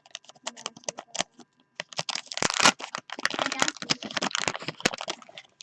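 Crinkling, crackling and tearing of a 1989-90 Fleer basketball wax pack being ripped open by hand: a rapid run of sharp crackles, thickest from about two seconds in.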